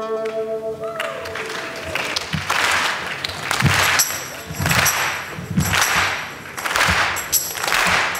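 The last held fiddle and plucked-string notes fade about a second in, then a live audience applauds and cheers in rising and falling waves.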